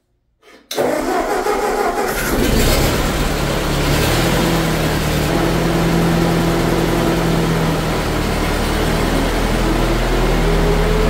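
Ford 8N tractor's four-cylinder flathead engine starting up, catching almost at once about a second in, then running steadily with its freshly adjusted valves and new muffler. Near the end the pitch rises slightly as the tractor pulls away.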